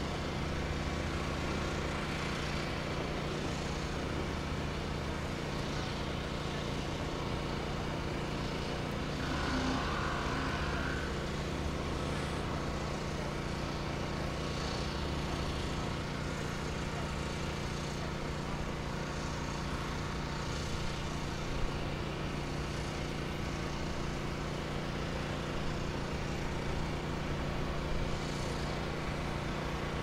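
Pressure washer running steadily: a constant engine-like drone with a steady low hum.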